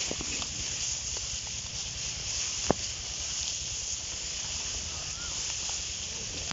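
Leaves and stalks of a sorghum field rustling and brushing as someone pushes through them, over a steady hiss and uneven low thumps of movement, with scattered small clicks and one sharp click a little under halfway through.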